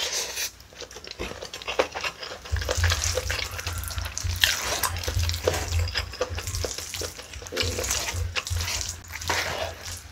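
Close-miked eating sounds: chewing a mouthful of spicy webfoot octopus rice, and a wooden spoon stirring the saucy rice in its bowl, a dense run of wet clicks and scrapes.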